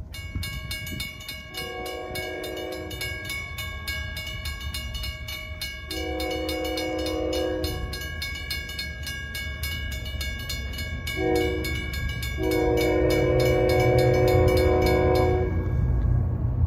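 Grade-crossing bell ringing rapidly, about five strikes a second, while an approaching locomotive's multi-note air horn sounds the crossing signal: two long blasts, a short one, then a long one. A low locomotive rumble grows louder near the end.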